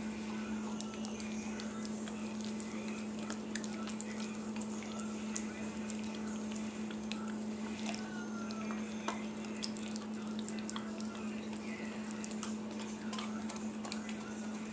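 A dog licking and smacking peanut butter off a spoon: irregular wet clicks and smacks of tongue and mouth, over a steady low hum.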